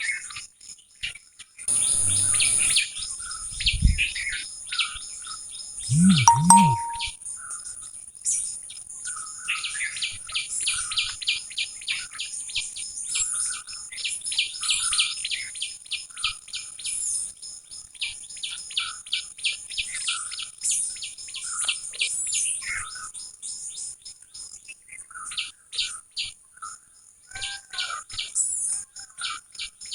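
Wild birds chirping and calling throughout, with long runs of quick repeated chip notes, over a steady high hiss. Two short, louder noisy bursts come about two and six seconds in.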